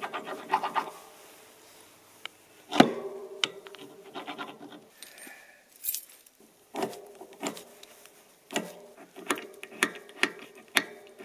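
A run of irregular sharp knocks and clinks from hard objects being handled and set down, each with a brief ringing note, coming faster in the last few seconds.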